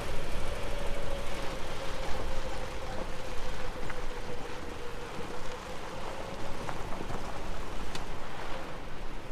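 A Lexus driving slowly over a rough off-road trail, its engine holding a steady drone under a hiss of tyre and trail noise, with a few sharp clicks and knocks.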